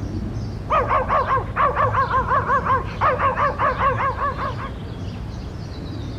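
An animal's rapid honking calls, about five a second, in three runs between about one and five seconds in, over a steady low rumble.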